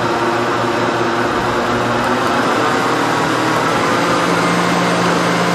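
Countertop blender running steadily, its motor churning a thick pie batter of milk, flour, oil, eggs and cheese in a plastic jug.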